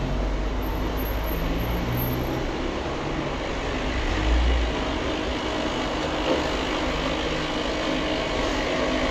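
A road vehicle in motion: steady engine and road noise with a low rumble, and a brief louder bump about four seconds in.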